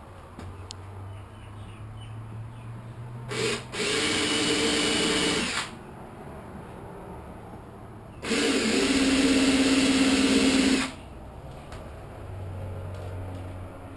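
Cordless drill running twice, each time for about two and a half seconds, starting and stopping abruptly, with a very short trigger blip just before the first run.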